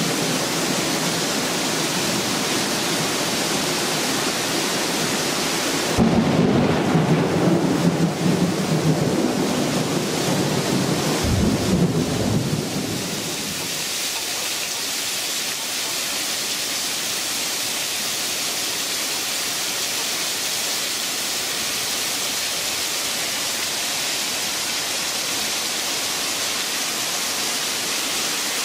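Heavy rain falling steadily, with a loud thunderclap about six seconds in that rumbles for several seconds before dying away into the steady hiss of the downpour.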